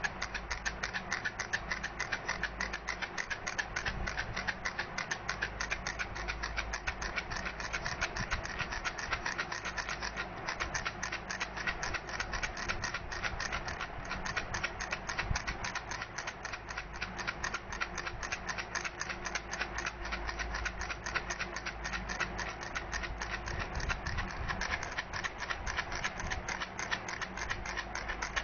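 Baby rattle shaken steadily, giving a fast, unbroken run of small clicks.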